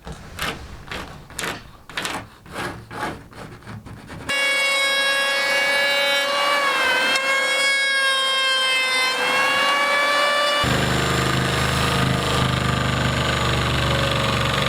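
Hand rasping strokes on wood, about two a second, taking down high spots on a boat floorboard. After about four seconds a power tool's electric motor starts with a loud, steady whine, its pitch dipping briefly twice as it bites. Near the last third the whine gives way to a different machine with a deep, steady hum.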